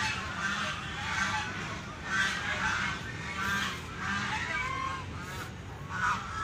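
A flock of domestic waterfowl calling: short, repeated honking calls, some overlapping, coming in clusters every second or so.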